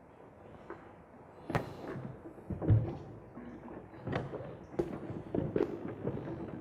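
Several irregular knocks and thuds, about five, from equipment being handled; the loudest, a heavy thud, comes about a third of the way in.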